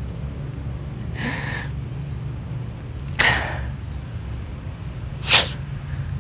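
A man crying: three short, sharp sniffing, gasping breaths about two seconds apart, over a steady low rumble.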